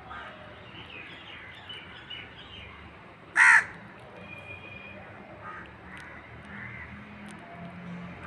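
A single loud crow caw about three and a half seconds in, over the faint scraping of a hand whisk beating cake batter in a steel bowl.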